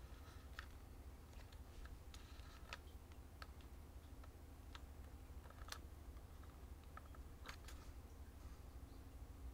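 Faint, scattered small clicks of a Leica Q3 camera's dial and buttons being worked by hand, about ten in all, over a low steady hum.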